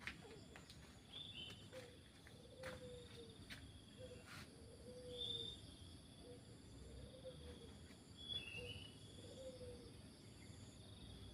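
Faint rural outdoor ambience: birds calling in short chirps and short lower notes, over a steady high insect hum, with a few soft clicks.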